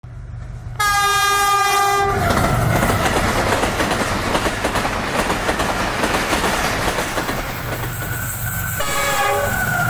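Diesel locomotive horn sounding for about a second, then the steady rumble and wheel clatter of a passing train. The horn sounds again briefly near the end.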